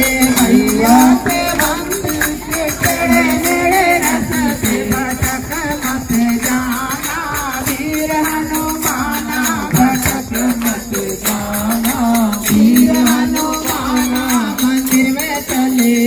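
Devotional hymn (bhajan) sung in repeating melodic phrases over a steady, quick beat of jingling tambourine-like percussion.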